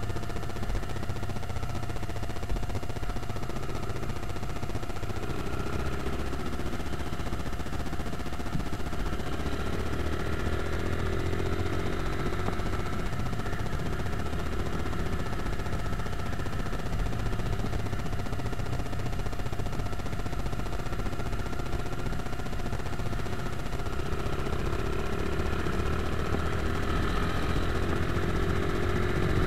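A 160 cc motorcycle's engine running under way, climbing in pitch twice as it accelerates, with wind noise over the microphone.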